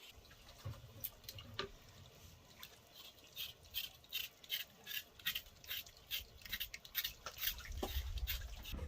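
Repeated short scraping or scrubbing strokes, about three a second, starting a few seconds in, with a low rumble building near the end.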